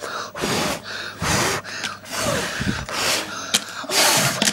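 A person gasping and breathing hard in repeated breathy bursts, about two a second, some with a short rise or fall in pitch.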